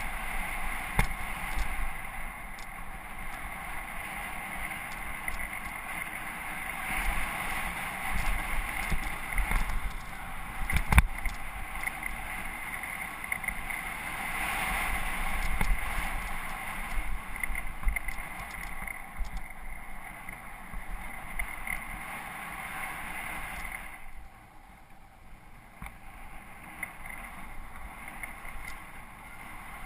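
Mountain bike riding over a dirt trail: steady tyre and rolling noise, with occasional sharp knocks and rattles from the bike and some wind on the microphone. It gets quieter about three-quarters of the way through.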